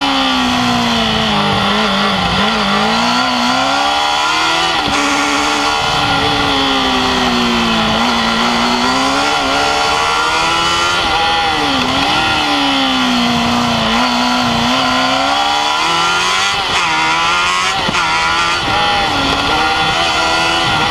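Formula Student race car's engine heard onboard while lapping, its pitch dropping as it slows for corners and rising again as it accelerates out, several times over.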